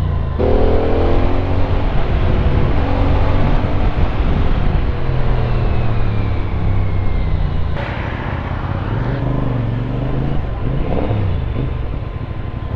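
CFMOTO 450NK's parallel-twin engine on its stock exhaust, revving up with rising pitch as the bike pulls away. There is a brief break about eight seconds in, then it pulls and rises again.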